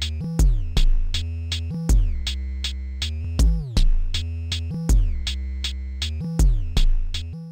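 Electronic background music: a drum-machine beat in pairs of hits about every one and a half seconds over a deep bass, with notes that slide down in pitch.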